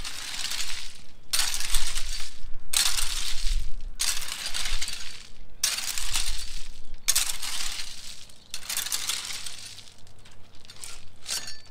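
Loose river rock being scraped and shifted with a long-handled hand tool, stones clinking and grating. It comes in about six drawn-out strokes a second or so long, with short pauses between, growing weaker near the end.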